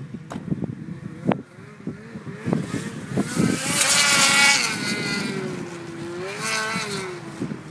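Turbocharged Ski-Doo Summit 800 snowmobile (Garrett ball-bearing turbo), its two-stroke engine running and revving out, loudest about four seconds in, rising again near six and a half seconds, then easing off with falling pitch near the end. A few sharp knocks come in the first second and a half.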